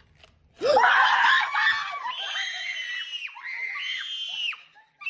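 High-pitched screaming: a loud shriek starts about half a second in, followed by three long, steady high squeals, each breaking off with a quick downward drop in pitch.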